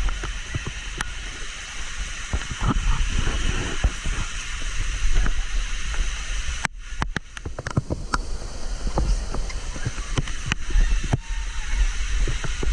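Rushing, splashing water of a waterfall and stream, with a low rumble and scattered knocks from a hand-held action camera.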